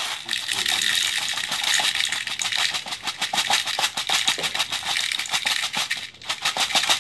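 Plastic airsoft BBs pouring from a bottle into the enlarged BB reservoir of a Tec-9 high-capacity airsoft magazine: a fast, continuous rattle of pellets clicking against each other and the plastic, with a brief break about six seconds in.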